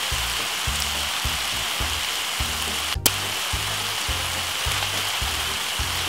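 Minced beef and vegetables sizzling in a frying pan, over background music with a steady low beat. A brief dropout and click about halfway through.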